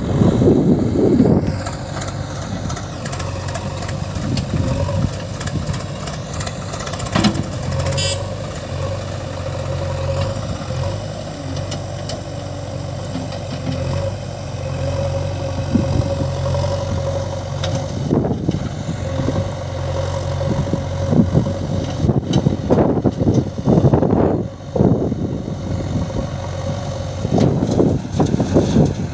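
Diesel engines of a JCB backhoe loader and a Swaraj 744 FE tractor running steadily together, with a steady low hum and a higher tone. A few louder low bursts come near the start and again twice near the end.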